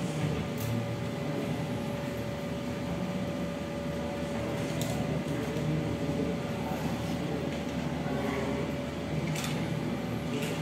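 Steady room hum with a thin constant whine through it, a low indistinct murmur, and a few faint light clicks.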